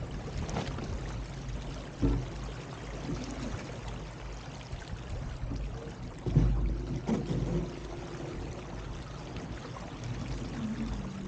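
Water rushing and splashing along an RS300 sailing dinghy's hull as it sails, with gusty wind rumbling on the microphone. A low thump comes about two seconds in and another about six seconds in.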